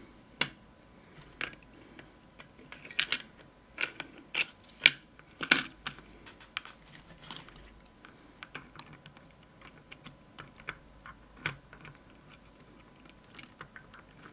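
Irregular metallic clicks and clinks of a Medeco lock cylinder being taken apart by hand, small metal parts and tools knocking together, busiest a few seconds in and sparser after.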